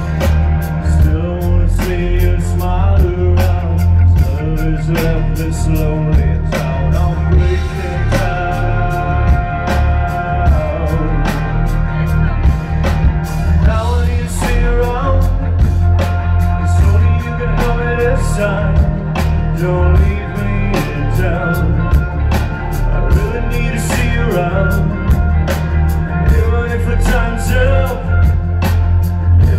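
Loud music with a singing voice played over outdoor stage speakers, with heavy bass and a steady drum beat.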